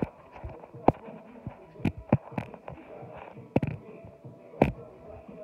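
Handling noise from a phone held against the body: irregular sharp knocks and rubbing, several louder bumps about a second apart.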